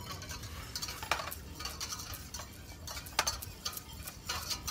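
Wire whisk stirring a syrupy sauce in a stainless steel saucepan, with irregular clinks and scrapes of the wires against the metal.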